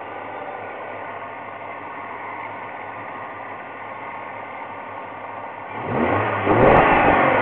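Car engine running steadily at idle; about six seconds in, the engine sound swells much louder with shifting pitch and starts to fall away again near the end.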